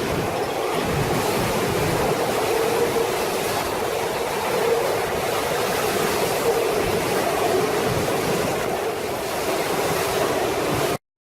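Steady rushing roar of a hurricane storm, wind and water noise with no letup, cutting off abruptly to silence near the end.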